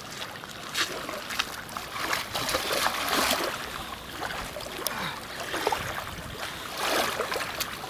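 Feet wading through shallow river water and a fishing keepnet being handled in it, with irregular splashes and sloshing.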